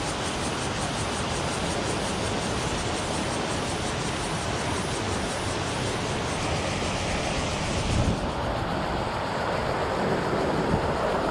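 Steady rush of river water spilling over a low concrete weir, with a dull knock about eight seconds in.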